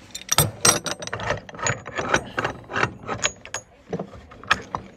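Irregular metal clicks and clacks of a ball joint press being wound tight by hand and wrench, pressing on a Vitamix blender's blade shaft to force out its worn sealed bearing.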